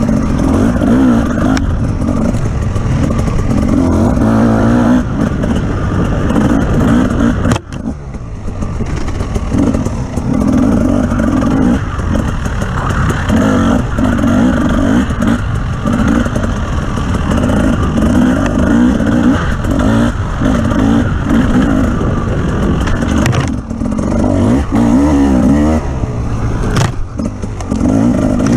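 Off-road vehicle's engine driven hard, revving up and falling back again and again, with clattering from the vehicle over rough ground. The engine note drops sharply for a moment about seven and a half seconds in, then picks up again.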